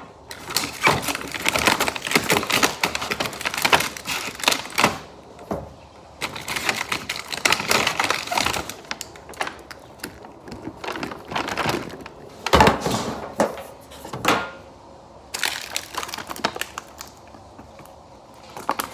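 Clear plastic packaging bag crinkling and rustling as it is handled, in long bursts with short pauses, mixed with scattered clicks and knocks.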